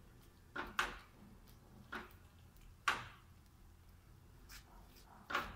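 Silicone spatula stirring thick curry gravy in a non-stick frying pan: four separate short scrapes against the pan, the last near the end.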